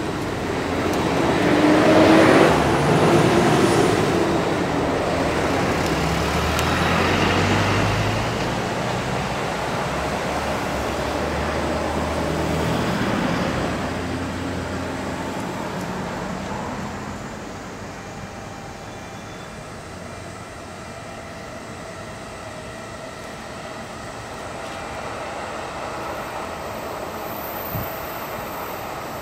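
Road traffic: motor vehicles passing over the level crossing, louder in the first half with low engine rumble, then easing to a quieter steady traffic noise after about seventeen seconds.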